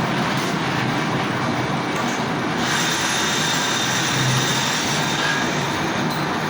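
Lathe running with a boring tool cutting inside a bore: a steady mechanical grind, with a thin high whine from the cut joining about two and a half seconds in.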